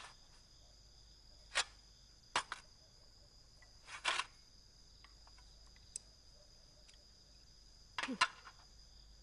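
A few sharp clicks of chopsticks against porcelain bowls and dishes as someone eats, over a steady chirping of crickets. A short, sharper sound near the end is the loudest.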